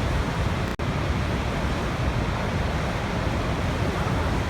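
Waterfall: a steady, dense rush of falling water. There is a momentary gap in the sound about three quarters of a second in.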